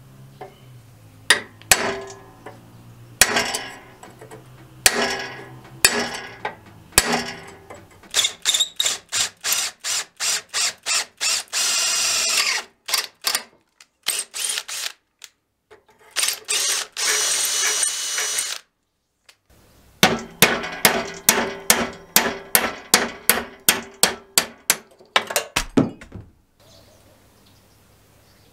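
Several sharp ringing strikes of a hammer on a steel punch set against a rusted pivot pin, then an electric drill boring out the pin, running in short choppy bursts with two longer runs and pauses between.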